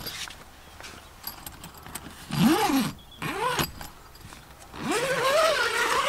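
Tent fabric rustling and a zip being worked as the roof tent's skylight cover is pulled open, with light clicks and scrapes. Three short pitched sounds that rise and fall in pitch come about two and a half seconds in, again a second later, and as a longer one near the end; these are louder than the rustling.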